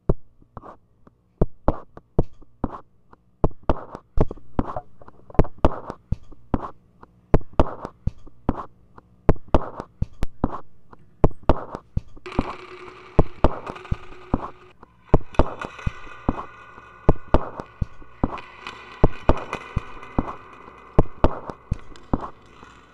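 Fingers tapping out a loose percussive beat on the lid of a small tin can, picked up and looped live through effects. About twelve seconds in, a dense layer of sustained electronic tones and hiss comes in over the taps.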